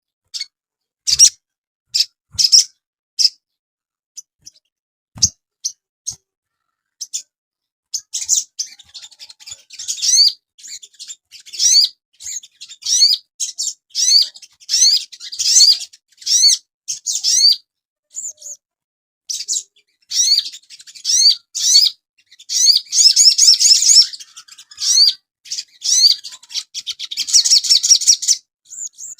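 Sogon (crimson sunbird) singing: a few short, high chirps spaced apart, then from about eight seconds in a fast, dense twittering song of quick sliding notes in bursts with brief pauses, at its fullest twice near the end.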